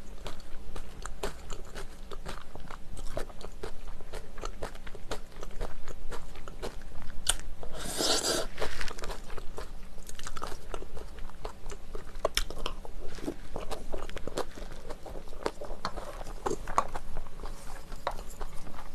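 Close-miked chewing and biting of jjajang rice mixed with chopped Cheongyang chili peppers, with a wooden spoon clicking and scraping against the bowl. A brief louder rush of noise comes about eight seconds in.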